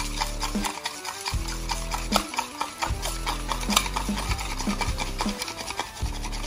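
A spoon stirring and scraping around a small metal bowl of fish-sauce dipping sauce, a quick irregular run of scrapes and clinks against the bowl's side.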